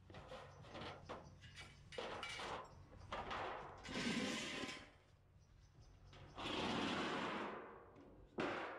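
Thin sheet metal flexing and scraping on concrete as it is stepped on and shifted, in several noisy bursts. The longest scrape comes about six and a half seconds in and lasts about a second.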